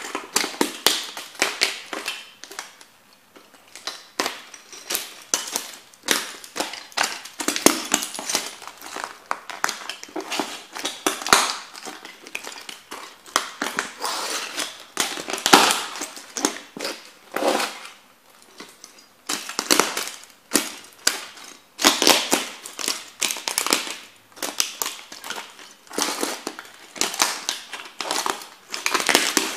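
Brittle plastic pieces of a kit model toy car cracking and crunching under the rubber lug soles of Timberland boots stomping and grinding on them. The sharp snaps come in dense clusters, one after another.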